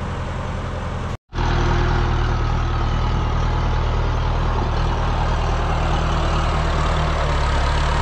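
Tractor engine running steadily with a low, even hum. About a second in it cuts out abruptly for a moment, then carries on a little louder.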